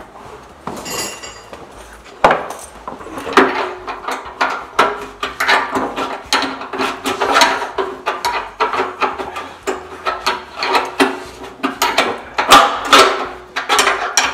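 Hand wrench tightening the bolts on a hydraulic loader valve bracket: quick metallic clicks and scrapes in repeated strokes, starting about two seconds in.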